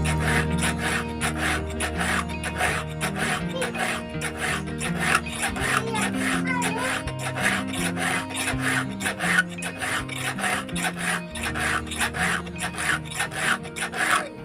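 A file rasping over the cutters of a chainsaw chain in quick, even strokes, about three to four a second, as the chain is sharpened.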